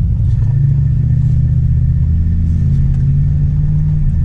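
1999 Dodge truck's engine running while the truck drives, a steady low drone. Its pitch shifts slightly just after the start and again near the end.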